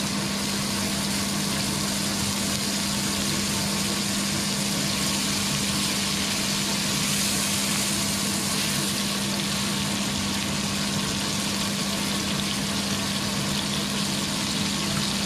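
Breaded fish fillets frying in butter and olive oil in a non-stick pan: a steady sizzle, with a steady low hum underneath.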